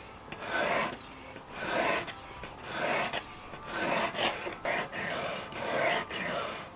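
Whetstone on a fixed-angle knife sharpener's guide rod rasping along the edge of a steel kitchen knife, about six even strokes roughly a second apart, grinding metal off the edge.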